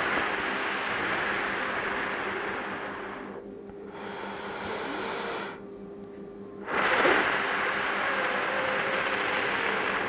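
A man's paced breathing exercise: a long breath blown out slowly through pursed lips, then a shorter, quieter breath in, then from about seven seconds in another long, slow exhale through the mouth. Each out-breath is drawn out to roughly twice the length of the in-breath.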